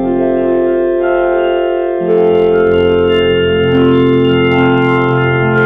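Electronic voice effect turning the voice into sustained organ-like chord tones. The chord shifts about two seconds in and again near four seconds.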